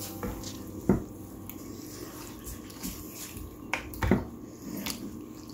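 Wooden spoon stirring sliced cucumbers and onions through liquid brine in a glass bowl: wet sloshing, with a few sharp clicks of spoon against bowl, the loudest about four seconds in.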